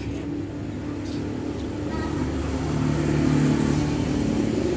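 Street traffic: a motor vehicle's engine running close by, getting louder about halfway through as it nears.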